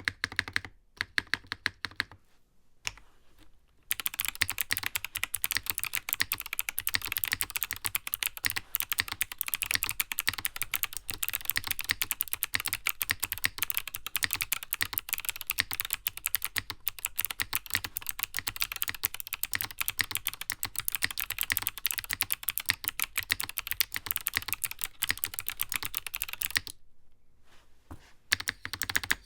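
Typing on a NovelKeys Classic TKL mechanical keyboard: a few separate keystrokes, a short pause, then a long run of fast, continuous typing that stops near the end before a few more keystrokes.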